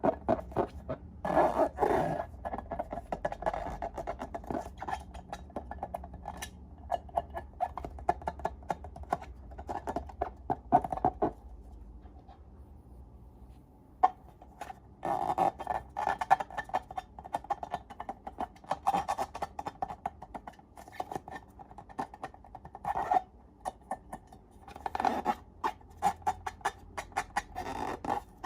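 Slime being squeezed and worked by hand: sticky squishing with rapid crackling, popping clicks in bursts, pausing briefly about twelve seconds in.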